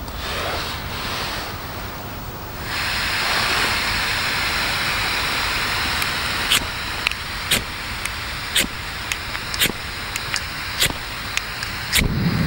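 Gas hissing steadily from a remote-canister camping stove's burner once the canister valve is opened. From about halfway there are repeated sharp igniter clicks, roughly two a second, and the burner lights near the end with a deeper burning sound.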